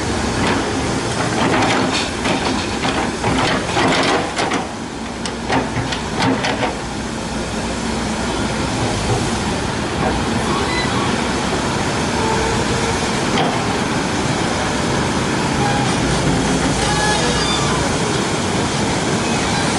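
Komatsu 130F excavator's diesel engine running under load, with rocks clattering and scraping for the first seven seconds or so, then a steadier running noise.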